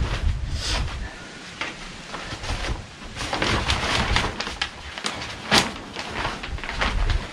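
Plastic damp-proof membrane sheeting being pulled and folded, rustling and crinkling in irregular bursts, with wind rumbling on the microphone now and then.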